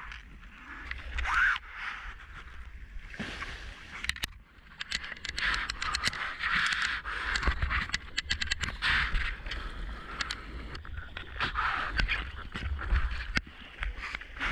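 Sea water splashing and sloshing around a whitewater kayak as it is paddled through small surf, with many sharp splashes and drips from about four seconds in.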